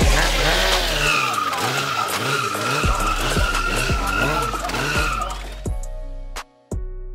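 Motorcycle rear tyre squealing in a burnout over the running engine, with music underneath. About five and a half seconds in the squeal stops and music with a steady beat takes over, dropping out briefly near the end.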